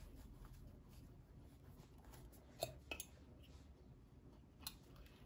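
Near silence: room tone, with a few faint clicks about two and a half seconds in and again near the end, from photocards and paper inserts being handled in a binder pocket.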